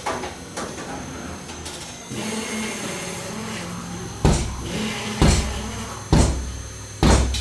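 A steady machine hum starts about two seconds in. From about four seconds in it is joined by heavy, deep blows struck about once a second, four times.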